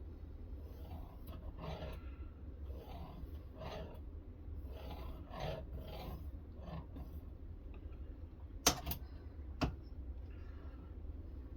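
Knife edge being drawn over a strop in a guided sharpening system: a series of short scuffing strokes, about one a second. Two sharp clicks stand out about three-quarters of the way through, over a steady low hum.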